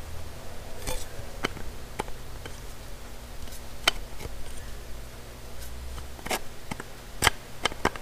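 Irregular sharp clicks and ticks of steel crimping pliers modified into a bead crimper, squeezing and shifting around the end of a thin aluminum pipe as a bead is pressed into it, about a dozen over several seconds, over a low steady hum.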